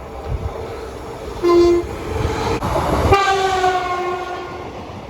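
Train horn sounded over the rumble of a train: a short blast about a second and a half in, then a longer blast about three seconds in that sags slightly in pitch.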